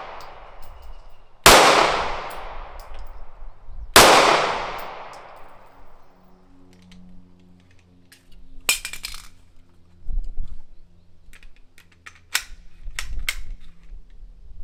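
Two 9mm pistol shots about two and a half seconds apart, each followed by a long ringing echo. Then come a few sharp metallic clicks and clacks as the pistol is handled and its magazine is taken out.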